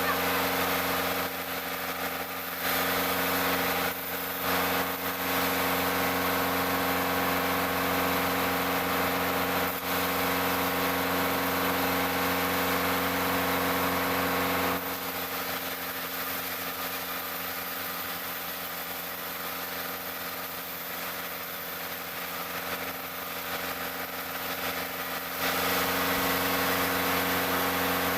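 Sawmill machinery running: a steady engine hum throughout, turning louder and harsher from about three seconds in to about fifteen seconds, and again near the end.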